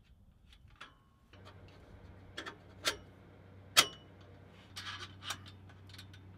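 Sharp metallic clicks and clinks of exhaust U-bolt clamps and steel pipe sections being handled and fitted together, a handful of separate knocks with the loudest a little before the four-second mark. A low steady hum comes in about a second in.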